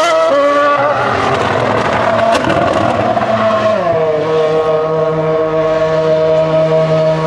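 Honda RA108 Formula One car's V8 engine revving with wavering pitch and tyre squeal as it spins in tyre smoke. Just before four seconds in, the revs fall away and the engine settles to a steady idle.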